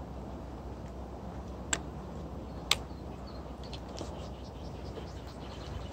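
Steady low outdoor background rumble with two sharp clicks about a second apart, the second one louder.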